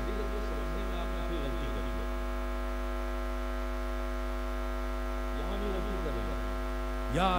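Steady electrical mains hum, a low drone with a ladder of steady higher tones above it, running under the audio. Faint speech shows through it in the first couple of seconds and again around five to six seconds in, and louder speech starts right at the end.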